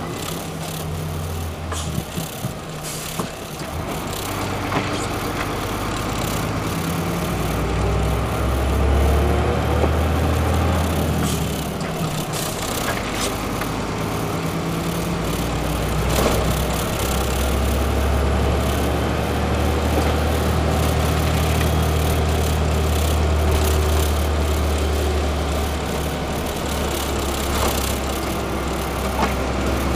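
Heavy gravel truck's engine running as it drives, heard from inside the cab, its note rising and falling as speed changes. Occasional short knocks and rattles.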